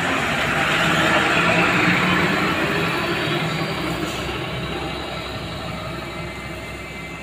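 Loaded cargo truck's diesel engine pulling uphill as it passes close by. It is loudest a second or two in, then fades steadily as the truck climbs away.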